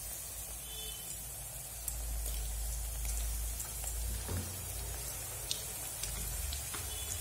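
Batter-coated okra (bhindi) deep-frying in hot oil in a steel kadai: a steady sizzling hiss with scattered crackles and pops over a low rumble.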